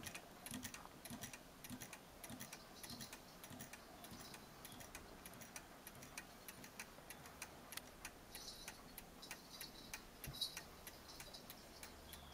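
German striking clock movement with only the time train fitted, running on a test stand: its escapement ticks steadily and evenly, the pinion leaves freshly smoothed. One louder click comes about ten seconds in.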